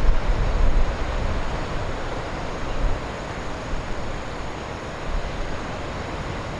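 Heavy typhoon surf breaking on the coast in a continuous rushing noise, with wind buffeting the microphone in low rumbles that are strongest in the first second.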